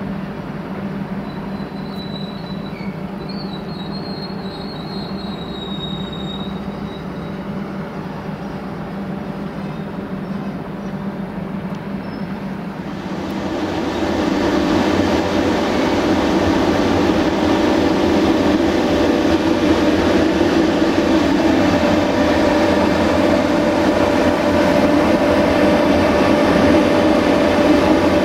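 Electric locomotives at a station. First a steady hum with a faint high squeal a few seconds in, then from about halfway on a much louder, steady rolling noise as a 040-EC (LE3400) electric locomotive and its train pass close by.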